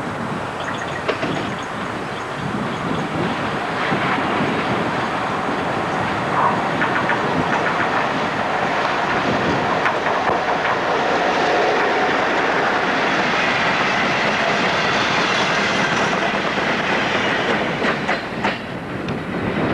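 British Rail Class 47 diesel locomotive, its Sulzer twelve-cylinder engine running, hauling a short freight train past at speed. The sound builds over the first few seconds as the train approaches, then wagon wheels clatter over the rail joints as the train goes by, falling away near the end.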